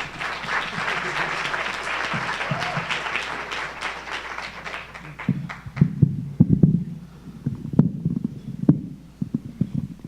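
Audience applauding, dying away about five seconds in, followed by scattered low thumps and a few sharp knocks.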